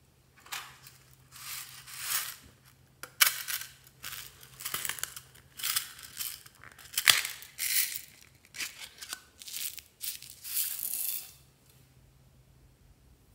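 Small beads shaken and poured from a little metal tin onto slime: a run of short rattling bursts, with a sharp click about seven seconds in.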